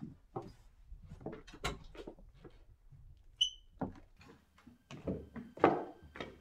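Footsteps and knocks of someone walking across a wooden floor and handling a door, with a short high squeak about halfway through and a louder knock near the end.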